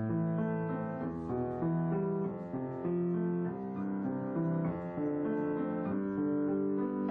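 Background music played on piano or keyboard: held notes and chords changing about every half second to a second.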